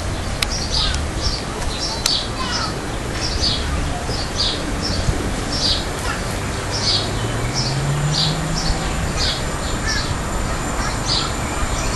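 A bird calling over and over with short, high chirps, about two a second, over steady outdoor background noise. A low drone rises in pitch about seven seconds in.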